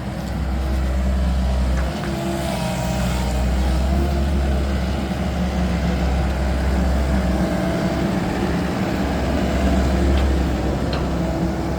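Komatsu excavator's diesel engine running steadily under load, with a few steady pitched tones above the engine that wander slightly in pitch.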